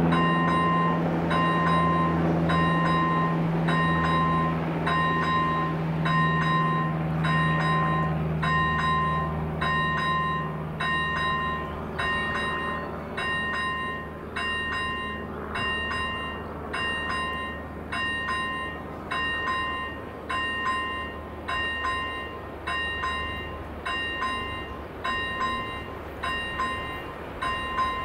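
Level crossing's electronic warning bell ringing about once a second, steady throughout. Under it the low rumble and drone of a train fades away over the first dozen seconds or so.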